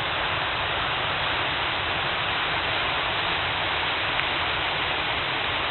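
Floodwater rushing, a steady, even rush of very high water.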